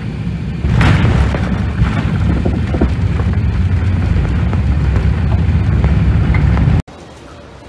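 Heavy low rumble inside an Airbus A380's cabin as it rolls down the runway after landing, swelling about a second in with a rush of noise. It cuts off abruptly near the end to a much quieter background.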